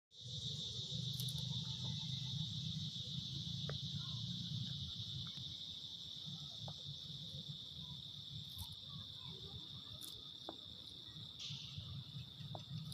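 Steady high-pitched insect chorus, a continuous shrill buzz that thickens for a moment near the end, over a low rumble with a few faint scattered clicks.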